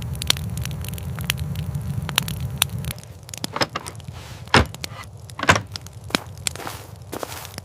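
Campfire crackling with scattered sharp pops, the two loudest about halfway through. A low rumble underneath fades out about three seconds in.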